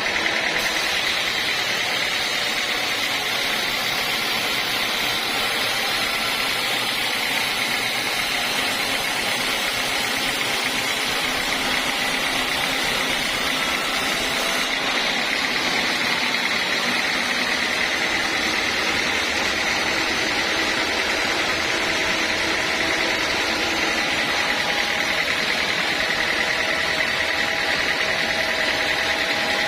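Sawmill band saw running steadily, a continuous machine noise with a steady high whine.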